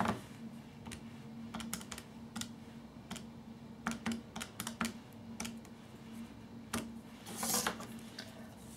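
Keys of a Casio scientific calculator being pressed, a run of soft, irregular clicks, with a short rustle near the end.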